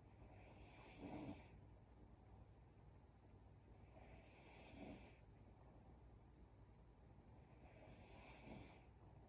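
A young woman snoring faintly in her sleep, three slow snores about four seconds apart, each swelling to its loudest at the end.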